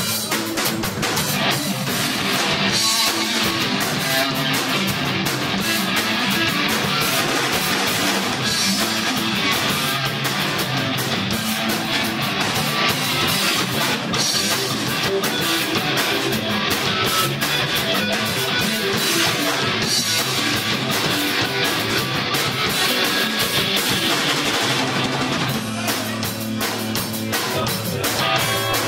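Rock band playing live: electric guitar and drum kit at a steady, full level.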